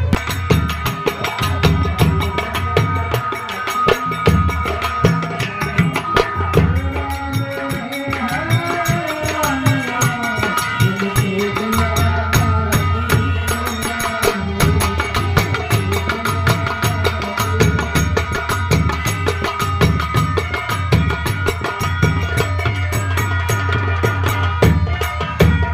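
Live Indian folk music for nautanki theatre: fast, steady hand-drum playing with a wavering melody that rises over the drums near the middle.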